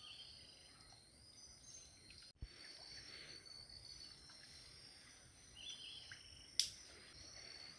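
Faint, steady chorus of insects with a few bird chirps. A single sharp click a little over six and a half seconds in.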